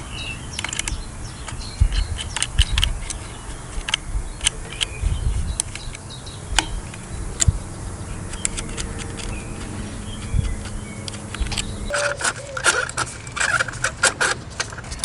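Irregular metallic clicks, clinks and knocks of a socket wrench and small metal parts while the ignition coil packs and spark plugs are removed from the engine. The clicks come thickest near the end.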